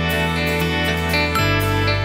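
Instrumental background music; the bass note changes about one and a half seconds in.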